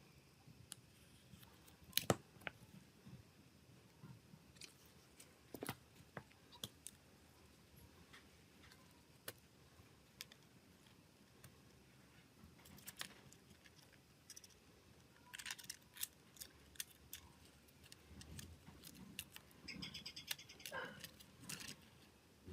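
Sparse light clicks and taps of small tools and phone parts being handled, with one sharper click about two seconds in and a denser run of clicks near the end.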